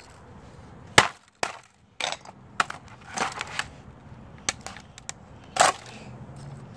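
Hammer blows on a laptop's plastic keyboard deck: a string of sharp cracks and knocks at uneven intervals, the loudest about a second in and another near the end.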